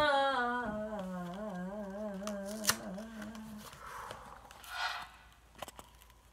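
A voice singing a long note that slides down in pitch and then holds with a wavering vibrato, fading out a little past halfway. Near the end comes a brief papery rustle from a cardboard jello box being handled.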